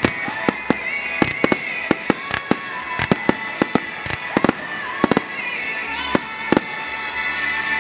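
Aerial fireworks shells bursting in a rapid, irregular string of sharp bangs, several a second, thinning out after about six seconds. Music plays underneath.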